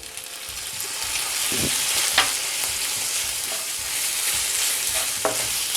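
Crumbled paneer frying in ghee in a pan. The sizzle swells over the first couple of seconds as a spoonful of milk goes into the hot pan, and a spatula clicks against the pan a few times as it is stirred.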